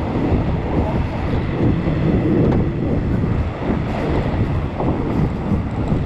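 Passenger train running: a steady low rumble and rattle of the carriage and wheels, with wind on the microphone.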